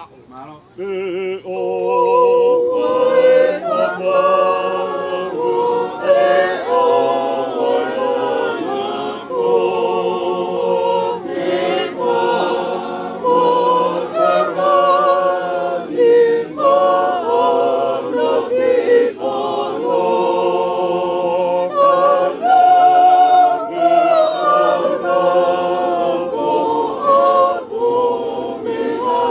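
A choir of mourners singing a hymn a cappella in several-part harmony, the singing starting about a second in.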